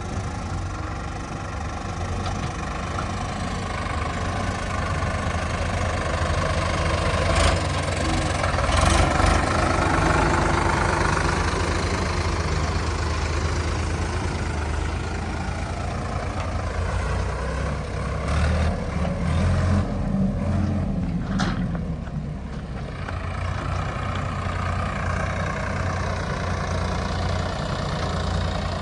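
Diesel engine of a JCB 3DX backhoe loader running steadily, its revs swelling and easing as the machine works under load. A couple of sharp metallic knocks come through, one about a third of the way in and one about three quarters of the way through.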